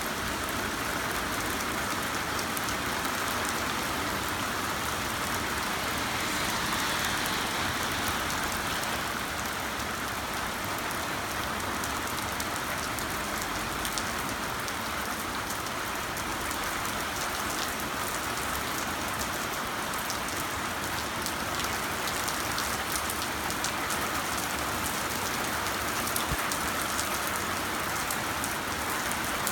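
Heavy rain falling steadily, a dense hiss of drops striking hard surfaces with many small individual drop ticks.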